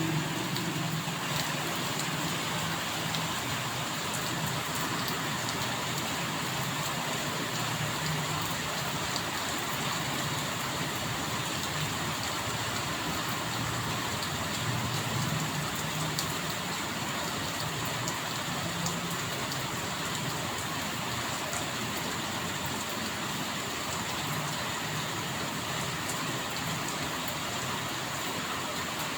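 Steady rain: an even, unbroken hiss with scattered drop ticks, over a low wavering rumble.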